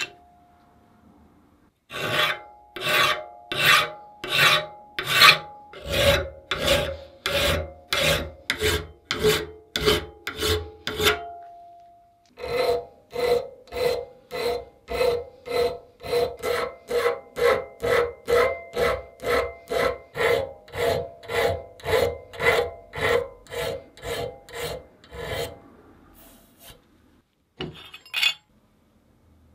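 Hand file stroking back and forth across the steel jaw of a 1930s Adriance adjustable wrench, about two strokes a second with a faint metallic ring. The strokes come in two runs with a brief pause about midway, filing the jaw down and taking off its sharp edges.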